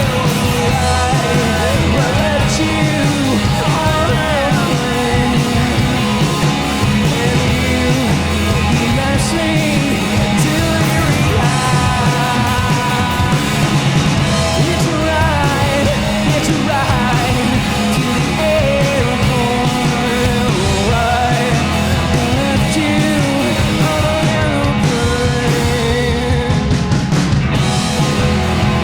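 Live rock band playing at full volume: electric guitars, bass and drums.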